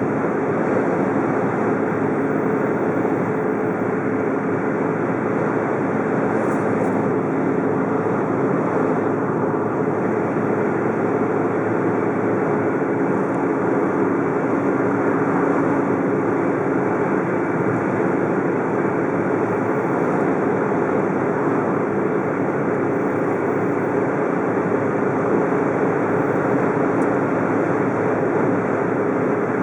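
Steady road and wind noise of a car driving on a windy day, with a low engine hum underneath.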